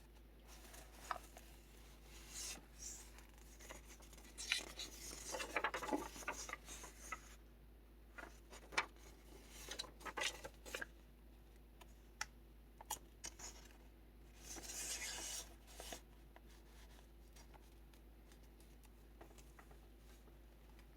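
Paper pages of a handmade kraft-envelope junk journal being handled and turned: quiet rustles, swishes and small taps, which stop about three-quarters of the way through.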